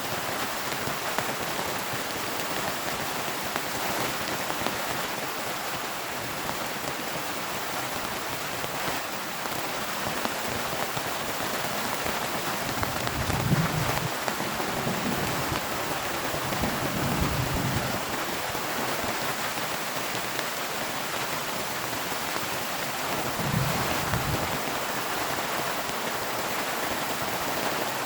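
Heavy rain pouring steadily, with low rolls of thunder rumbling about halfway through and again briefly near the end.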